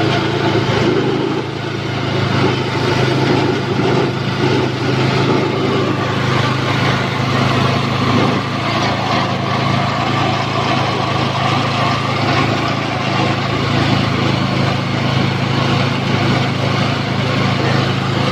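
Small engine running steadily, driving a sugarcane juice press while cane stalks are fed through its steel rollers.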